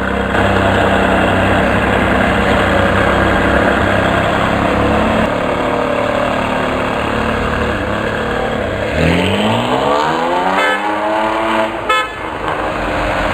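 Sports car engine running loud, then from about nine seconds in a hard acceleration with the pitch climbing steeply for a few seconds, and a short burst of crackles near the end.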